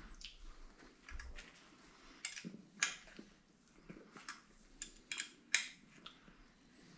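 Faint, scattered small metallic clicks and scrapes of a hex key working a light bar's mounting bolt on an aluminium bracket.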